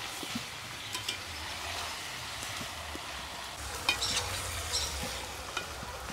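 Chicken pieces in spice paste sizzling in a kadai as they are sautéed (kosha), stirred with a metal spatula that scrapes and knocks against the pan several times, most sharply about four seconds in.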